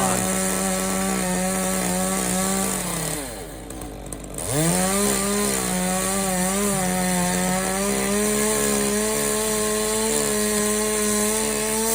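Chainsaw cutting through a post, its engine held at high revs. It drops back briefly about three seconds in, then revs up again and cuts steadily until it falls off near the end.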